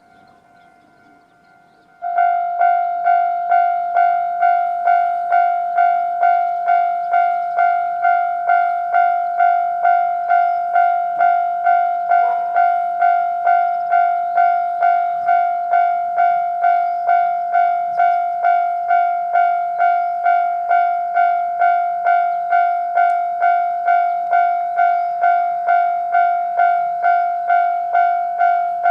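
Japanese railway level-crossing alarm starting up about two seconds in, then ringing steadily in its normal tone, a repeated electronic ding of about two strikes a second.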